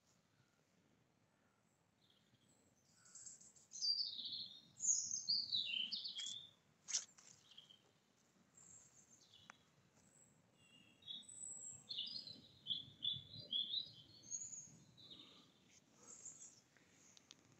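A small songbird singing in bursts of high, quick notes: one phrase starting about three seconds in, then a longer run of rapid chirps from about eleven seconds.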